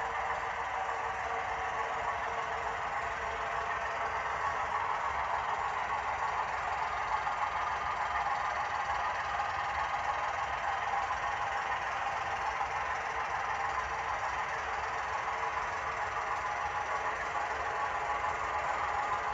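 HO scale model switcher locomotive running along the layout track: a steady, even running noise.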